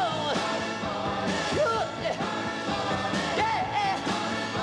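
Background music: a song with a singer over a backing band, with the voice sliding between notes over steady held chords.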